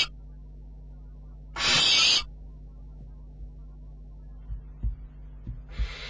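Barn owlet giving its rasping hiss call: one burst about two seconds in and another starting near the end, over a steady low hum. A few soft low thumps come from the chick moving in the nest box in the last second or two.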